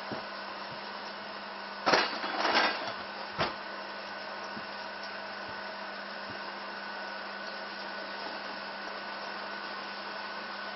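Steady hum and hiss of a running household machine. About two seconds in comes a short rustling scrape, and a single light knock a moment later.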